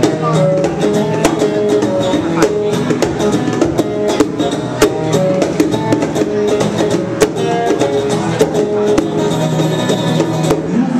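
Acoustic guitar strummed together with a pair of bongos played by hand, the drum strokes coming thick and fast in a steady rhythm.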